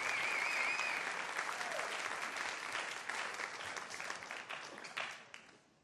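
Audience applauding, with a brief wavering whistle over it in the first second; the clapping thins out and dies away toward the end.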